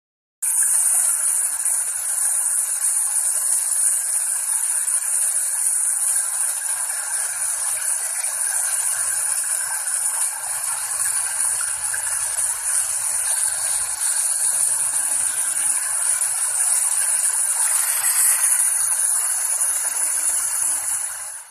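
Steady rain: an even hiss that cuts in abruptly just after the start and stops suddenly near the end.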